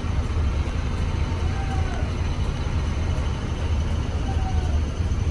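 Hino R260 coach under way: a steady low rumble of its diesel engine mixed with road noise.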